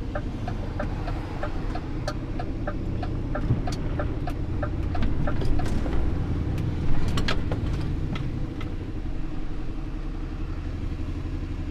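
Lorry's diesel engine running steadily, heard from inside the cab, with the turn indicator's rapid regular ticking for the first half as the truck turns in. The ticking stops about halfway through, and a few knocks and rattles from the cab follow.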